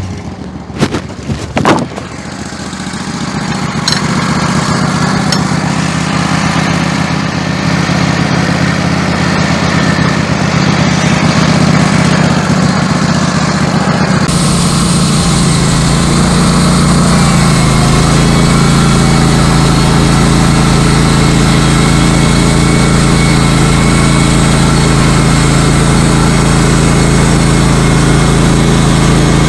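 Woodmizer LT15 Go sawmill's engine running steadily. A few knocks come in the first two seconds. The engine's hum builds over the next couple of seconds and shifts a little in pitch about halfway through.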